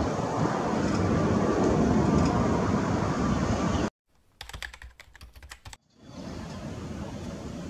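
Jet engine roar from an Airbus A321neo climbing away after takeoff, cut off abruptly about four seconds in. A rapid run of typewriter-like clicks follows as an on-screen title types itself in, and then a quieter steady background noise.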